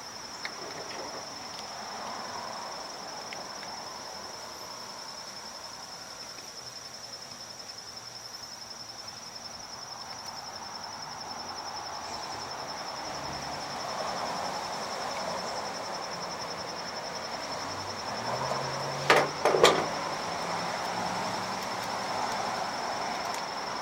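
A steady, thin, high-pitched whine in the background. Two sharp clicks about nineteen seconds in come from parts being handled as the hedge trimmer's carburetor is worked loose.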